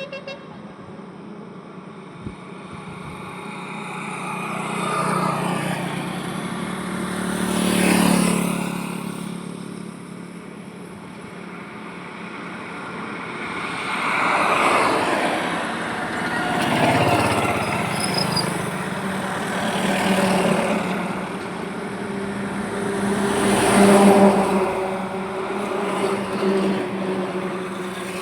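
Highway traffic with motor vehicles passing one after another, each swelling and fading over a few seconds, with engine hum under the road noise. The loudest passes come about 8 seconds in and near the end.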